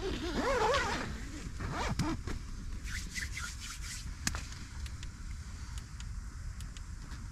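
Tent door zipper being zipped shut, with a quick wavering run in the first second and a shorter pull about two seconds in, then a few light clicks and taps.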